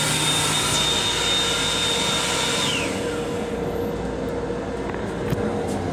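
Built-in hand dryer of an M7 railcar restroom blowing with a high steady motor whine, which winds down and stops about three seconds in. The moving train rumbles underneath throughout.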